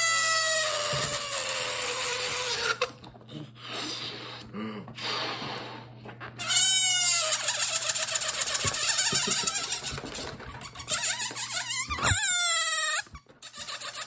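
Air escaping from a rubber balloon through its stretched neck: shrill squealing that slides up and down in pitch, alternating with a raspy, fluttering buzz. It comes in several bursts with short pauses between them, and the longest squeal is near the end.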